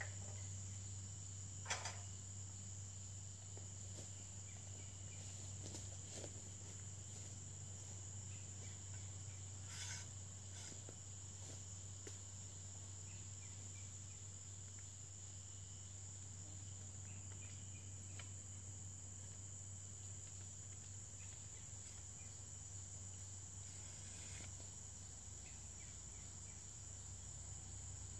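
Steady, high-pitched chorus of insects in summer woods, with a few faint knocks about two seconds in and about ten seconds in, over a faint low hum.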